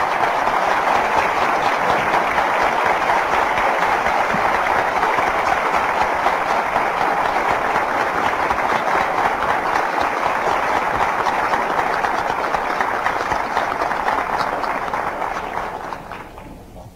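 Audience applauding steadily, fading away near the end.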